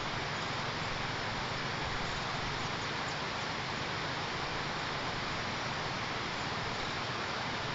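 Steady, even hiss of background noise with no distinct calls or events.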